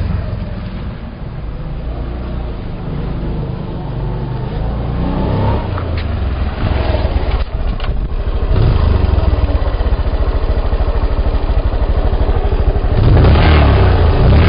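Motorcycle engine running: a couple of sharp clicks come about six and eight seconds in, then it idles with an even, rapid beat and revs up near the end.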